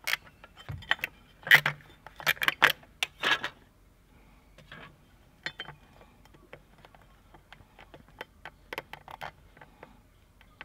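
Metal clinking and rattling of small parts as nuts and retention washers are worked off the studs of a brake booster and its metal standoff plate is lifted off and set down. A dense run of sharp clinks comes in the first few seconds, then scattered lighter ticks.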